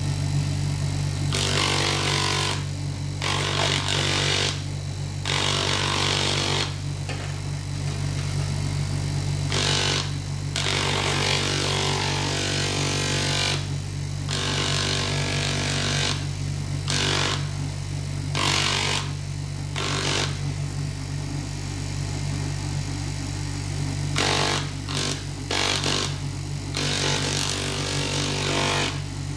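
Bench grinder running with a steady hum while a small stone is held against its spinning 5000-grit sanding pad, giving repeated bursts of sanding hiss as the stone is pressed on and lifted off.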